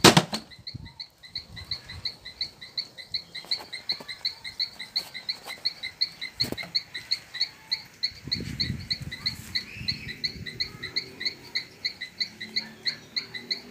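An animal's chirping call repeating steadily, about four short high chirps a second. A loud sharp knock at the very start, a few fainter clicks, and a low rumble about eight seconds in.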